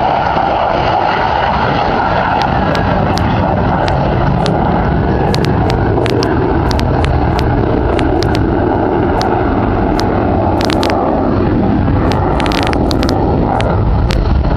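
Steady jet noise from a distant F-16 Fighting Falcon in flight, with frequent sharp clicks and crackles over it.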